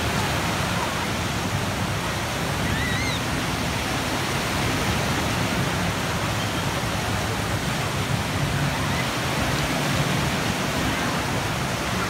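Wave pool surf: a steady rush of churning water and breaking waves.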